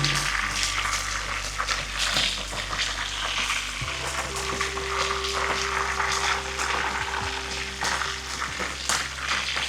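Food sizzling as it fries in a hot pan, a steady hiss with frequent sharp crackles and pops.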